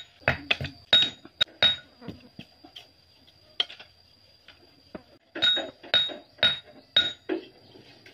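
Thin split-bamboo strips clacking against one another as they are handled and tossed onto a pile: sharp clicks with a light ring, a quick run at the start and another cluster past the middle.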